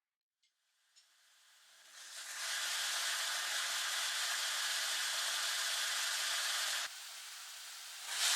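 A steady hissing rush of noise that swells up over the first couple of seconds and holds. It drops a step about seven seconds in, then briefly gets louder near the end.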